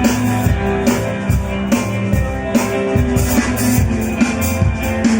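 A rock band playing live, with drum kit and guitar.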